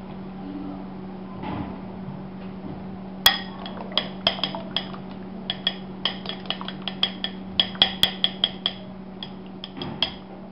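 A sharp knock about three seconds in, then a quick run of light clinks on a glass bowl, several a second, that stops near the end. A low steady hum runs underneath.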